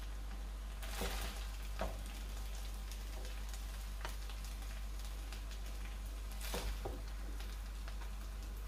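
A wooden spoon scooping cooked basmati rice out of a hot pot onto a plate, with a few short scrapes and soft strokes, over a steady faint sizzling hiss from the pot.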